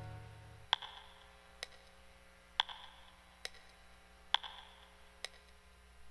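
Soundtrack music: a guitar chord dies away, then a quiet clock-like tick-tock, about one tick a second, alternating stronger and weaker ticks.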